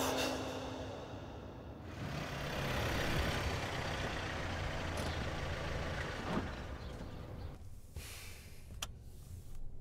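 A car driving past, its engine and tyre noise swelling for a few seconds and then fading away.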